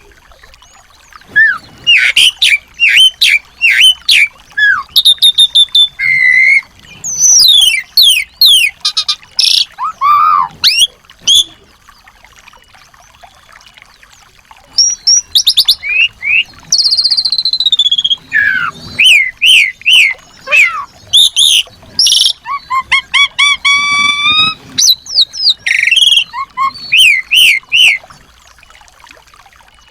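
Small songbirds chirping and whistling in quick, varied high notes, many sliding up or down, with rapid trills mixed in; the singing breaks off for a couple of seconds near the middle and again near the end.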